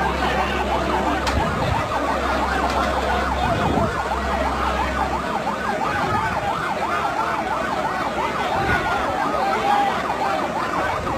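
Emergency-vehicle siren sounding in fast rising-and-falling yelp sweeps, with a low steady hum underneath that cuts out about five seconds in.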